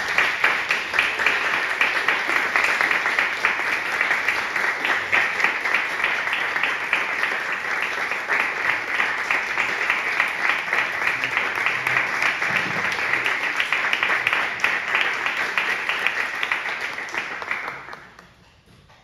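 A small audience applauding, dense steady clapping that dies away about a second before the end.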